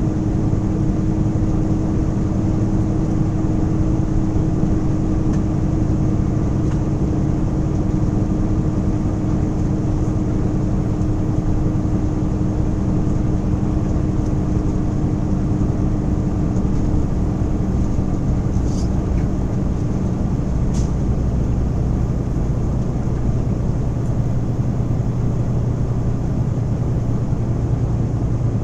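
Steady in-cabin driving noise of a moving vehicle: engine drone and road noise from the tyres. About two-thirds through, the higher engine tone fades and a lower drone takes over, and two brief high chirps are heard around the same time.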